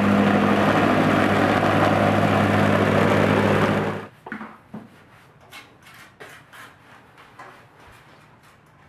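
Wacker WP1550 vibratory plate compactor running steadily at full throttle, vibrating joint sand into a paver driveway. It cuts off abruptly about four seconds in, leaving faint scattered taps.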